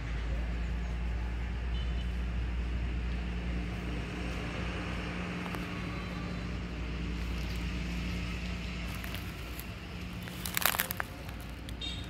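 Steady low rumble with a faint hum and hiss, and a brief loud crackle about ten and a half seconds in.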